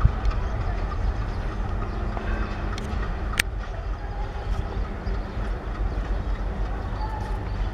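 Four coupled ALCO-type diesel-electric locomotives (WDM3D and WDG3A) running light, giving a steady deep engine rumble as they approach. A single brief, sharp, high click comes about three and a half seconds in.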